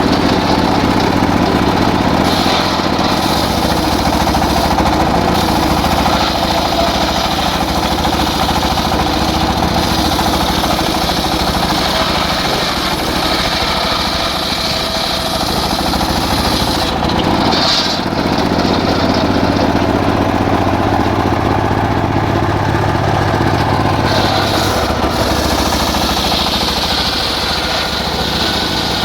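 Engine-driven circular sawmill running steadily while ripping teak, the motor humming throughout. A brighter, higher-pitched edge comes in briefly about two-thirds of the way through and again near the end.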